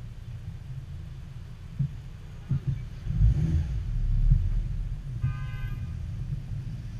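Low rumble of a car's engine and road noise as it pulls away from a stop and turns, louder from about three seconds in. A short, pitched tone sounds briefly about five seconds in.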